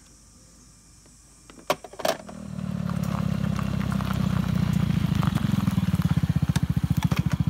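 Honda Ruckus 49 cc four-stroke single-cylinder scooter engine starting about two and a half seconds in, after two short clicks, then idling steadily with an even, rapid beat.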